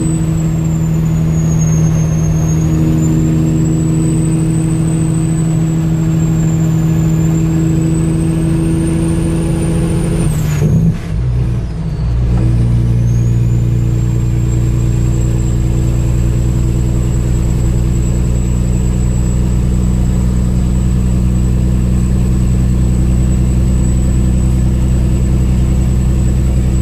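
Kenworth W900L semi truck's diesel engine running steadily under way, with a thin high whine riding over it that rises and falls with the engine. About eleven seconds in, the engine sound breaks off for a second or so and the whine dips. It then settles back into a steady run on a different note.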